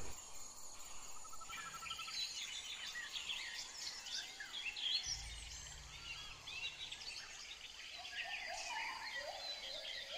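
Birds chirping and twittering in the background, many short calls overlapping, with a brief low hum partway through.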